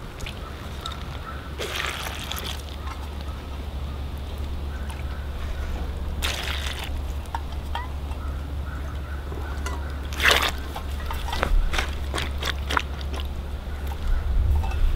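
Water sloshing and pouring in a cooking pot, with a few swelling splashes and scattered light knocks over a steady low rumble.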